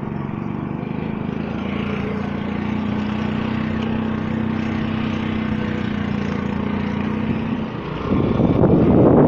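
A small vehicle's engine running steadily while driving along a rough dirt road, a little louder from about two seconds in. About eight seconds in, loud wind buffeting on the microphone takes over.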